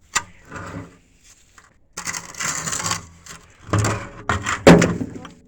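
Scrap pieces being handled and tossed: a sharp click, a scraping shuffle, then a few hard metallic clanks with short ringing, the loudest about four and a half seconds in.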